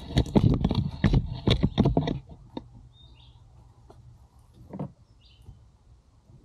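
Loud rustling and crackling for about two seconds, then quieter, with a bird chirping twice.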